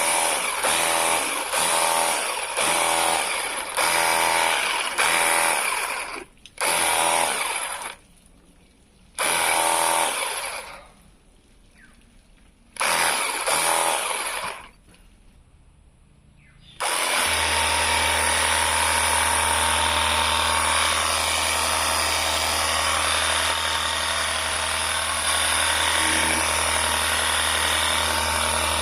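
Battery-powered portable pressure washer running in repeated bursts, starting and stopping several times as the trigger is pulled and released, then running continuously from a little past halfway with a steady low hum.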